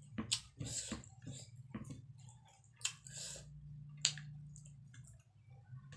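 Close-up wet chewing and lip smacking of a mouthful of rice and greens, with soft squishes and clicks as fingers mix rice on the plate, over a steady low hum.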